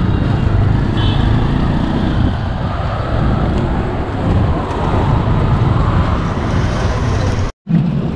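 Steady road traffic noise on a busy city street, with auto-rickshaw and car engines running and passing. The sound cuts out completely for a moment near the end.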